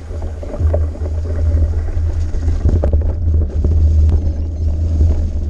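Storm wind buffeting the camera microphone during a mountain-bike descent of a muddy forest trail, a steady low wind noise, with tyre noise and short knocks and rattles from the bike going over bumps.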